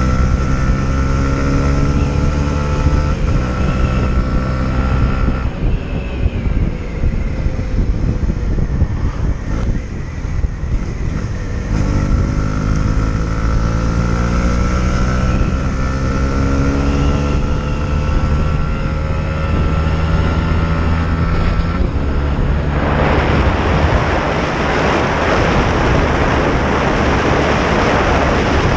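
Honda CB125R's single-cylinder 125 cc four-stroke engine pulling through the gears: the pitch climbs in each gear and drops at each upshift, and the engine eases off for a few seconds between about 6 and 12 seconds in. From about 23 seconds in, at around 109 km/h, heavy wind rush on the microphone drowns out most of the engine.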